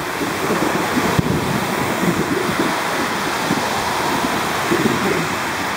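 Wind buffeting the microphone with a fluttering low rumble over a steady hiss of rain.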